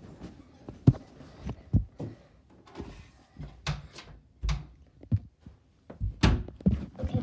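Irregular soft thumps and knocks, with some brief rustling, from a phone being handled and swung around.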